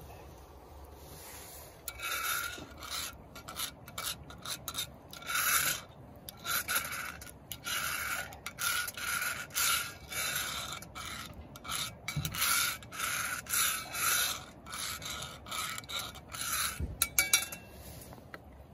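A utensil scraping and rubbing against the inside of a skillet on a campfire grill, in rhythmic strokes about two a second. It starts about two seconds in and stops shortly before the end.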